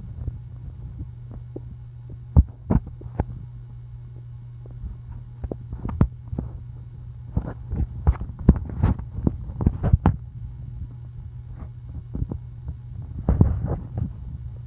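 Hungry human stomach growling: a run of short gurgles and pops, thickest in the middle and again near the end, over a steady low hum.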